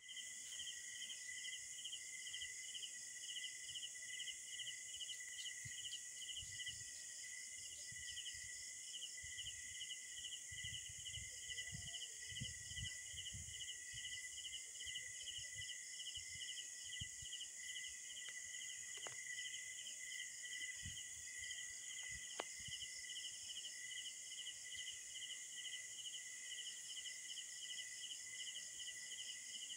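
Steady night-time chorus of insects: a constant high whine with a fast pulsing trill over it, unbroken throughout. A few low rumbling bumps of phone handling come in around the middle.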